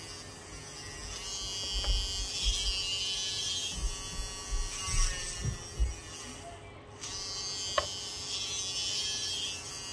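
Small electric hand drill whining as it bores eyepin holes in cast resin keyring letters, stopping briefly about seven seconds in and then running again. A few clicks and dull knocks as the resin pieces are handled.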